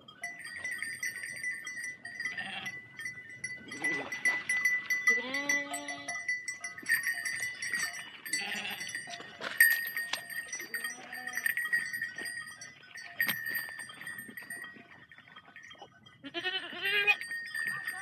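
A large flock of sheep moving through water, their bells ringing and clanking while several sheep bleat, with scattered splashes and knocks from hooves in the water.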